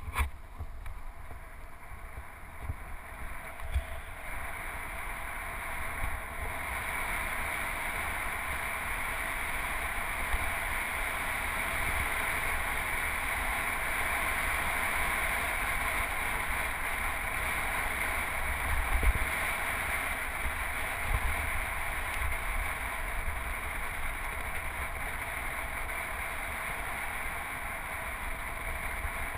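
Steady rushing wind and road noise picked up by a handlebar-mounted GoPro on a road bike riding at speed, with a fluttering low rumble of wind buffeting the microphone. The hiss builds over the first several seconds and then holds steady.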